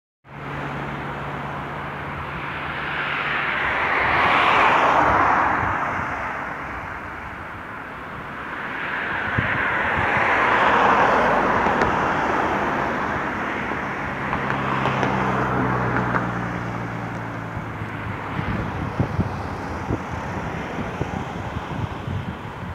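Road traffic passing close by, rising and falling in two loud swells a few seconds apart, with a smaller one later over a low steady hum. Wind buffets the microphone near the end.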